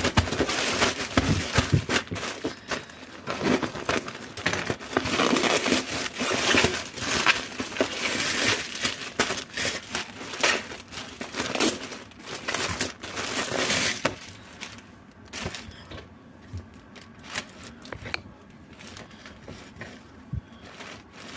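Plastic packaging crinkling and rustling as a courier mailer bag and the clear plastic bag inside it are handled and opened. The crinkling is dense and loud at first. About two-thirds of the way through it thins out to occasional quieter rustles.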